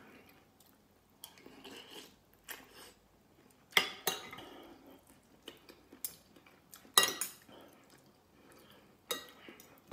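Metal spoon and fork clinking and scraping on a ceramic dinner plate while eating rice and soup: sharp clinks every second or two, the loudest about four and seven seconds in, with softer scraping between them.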